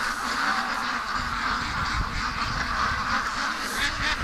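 A large flock of penned domestic ducks quacking continuously, many calls overlapping, with a low rumble underneath from about a second in.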